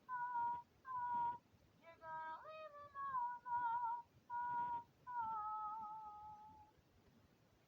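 A high voice singing unaccompanied in short held notes with a slight wobble, then one longer note of about a second and a half that sinks a little and fades out.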